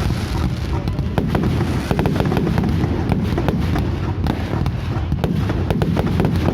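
Fireworks display going off: many sharp bangs and pops in quick, irregular succession over a continuous low rumble.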